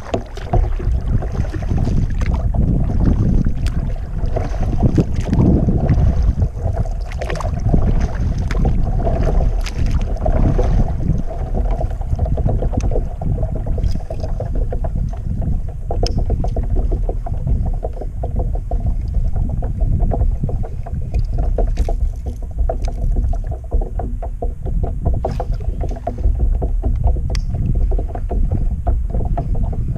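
Kayak paddle strokes: the double-bladed paddle dipping and splashing in calm water, with water dripping off the blade and small clicks and knocks, over a steady low rumble.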